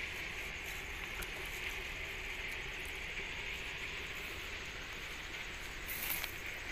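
Steady outdoor background hiss by open water, with a brief louder burst of noise about six seconds in.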